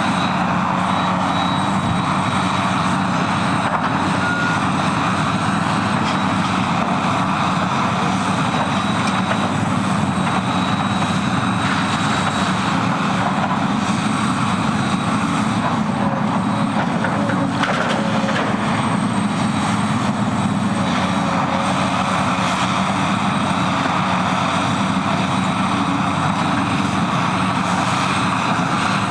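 Steady drone of the diesel engines of heavy hydraulic excavators running on a demolition site.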